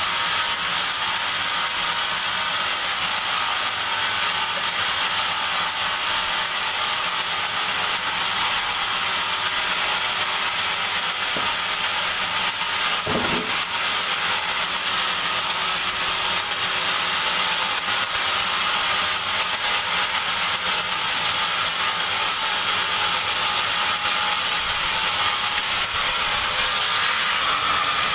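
Sawmill band saw running through a teak log, a steady, dense mechanical rasp.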